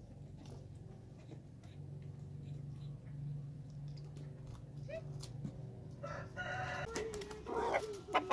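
A few faint clicks of a knife working through chicken pieces over a metal bowl, then about six seconds in a rooster crows, followed by more chicken calls near the end.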